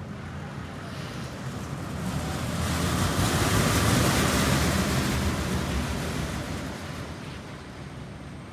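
Steel roller coaster train running past on its track, a rumble that swells to a peak about halfway through and then fades away.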